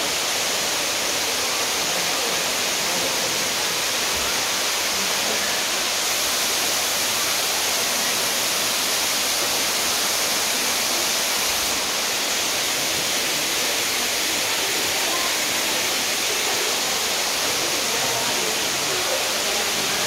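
Waterfall pouring through a hole in a natural rock arch into a plunge pool: a steady, even rushing hiss.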